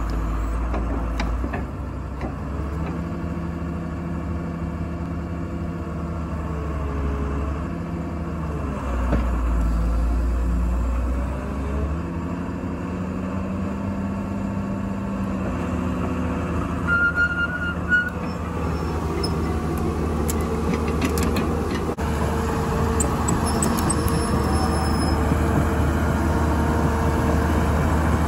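Hyundai Robex 200 LC excavator's Cummins 6BT5.9 six-cylinder diesel engine idling steadily, its pitch dipping and rising a few times. A few short clicks about two-thirds of the way through.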